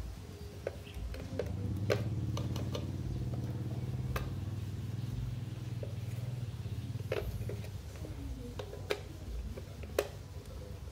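Sharp metallic clicks and snaps, a handful spread out, as a small screwdriver pries at the bent-over metal tabs of a BMW E36 M43 engine ECU's aluminium case, over a low steady hum.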